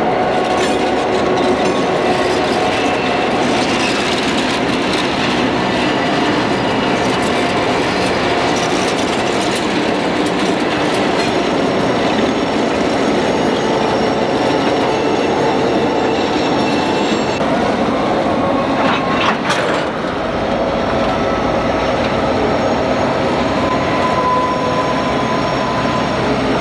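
Freight train with diesel locomotives passing at close range, with freight cars rolling by on the rails and steady high-pitched tones over the rumble. About twenty seconds in the sound changes abruptly to a deeper, heavier locomotive rumble.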